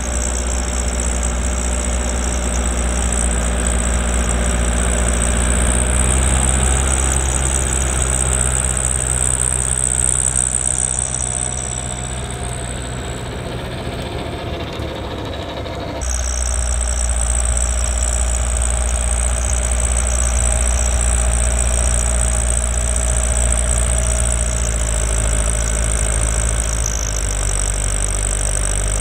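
New Holland L85 tractor's turbo diesel engine running steadily under load while driving a PTO-powered two-stage snowblower through wet snow, with a steady high whine above the engine. The sound dips for a few seconds about halfway through and then jumps back louder.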